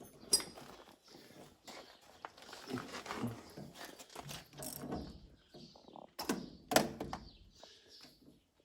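Metal clanks and knocks of tools and a pulley puller working on a John Deere 7720 combine's stuck countershaft sheave, with a sharp knock just after the start and two louder ones close together about six and a half seconds in.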